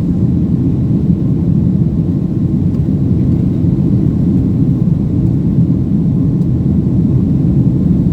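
Steady low rumble of a Boeing 757's jet engines and airflow, running evenly without change.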